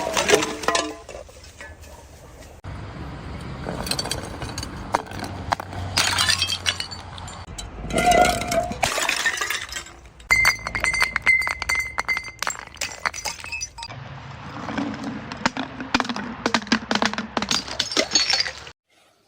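Glass being smashed and crushed: dense crunching and cracking, with shards clinking and ringing. It comes as a series of short takes that change abruptly and cuts off suddenly near the end.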